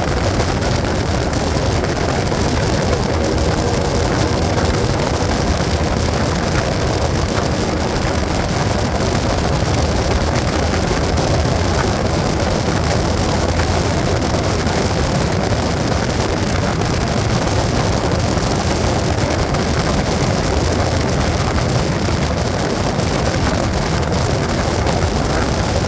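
Motorcycle at highway speed: steady engine drone mixed with wind rush on the microphone, unchanging throughout.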